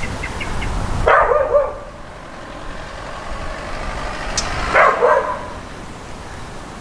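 A dog barking: two short bursts of a couple of barks each, about three and a half seconds apart.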